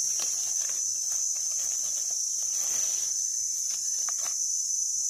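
A steady, high-pitched insect drone, with faint rustles and scrapes as a knife digs into dry leaf litter.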